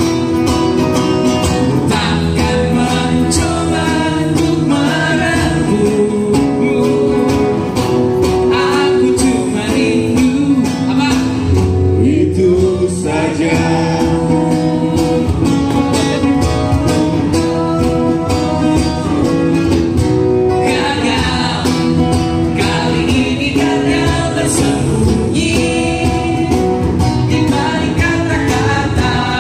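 Live acoustic band: a man singing over two strummed acoustic guitars, with a cajón keeping the beat.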